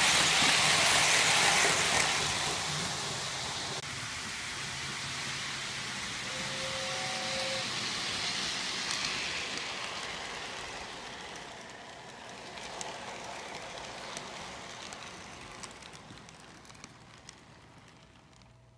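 Lionel O-gauge model train rolling past on three-rail track, a steady rumble and rattle of wheels that fades as the train moves away. There is a short two-note whistle about six and a half seconds in, and a few light clicks near the end.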